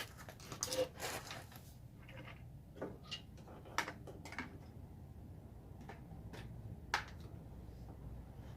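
Scattered light clicks and knocks of handling, a handful a second or more apart, the sharpest about seven seconds in, over a faint low hum.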